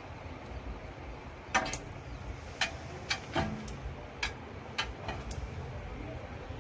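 A dog's claws clicking on a tiled floor as it steps in through a shop door: about eight sharp, irregular clicks, starting about a second and a half in.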